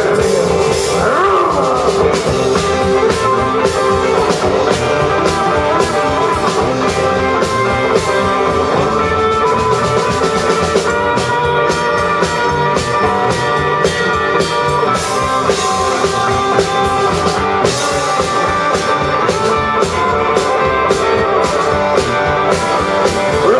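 Live rock and roll band playing loudly: two electric guitars, electric bass and a drum kit keeping a steady beat.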